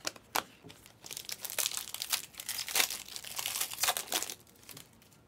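Panini Select trading-card pack's foil wrapper being torn open and crinkled in the hands: a dense crackling for about three seconds, after a couple of sharp clicks at the start.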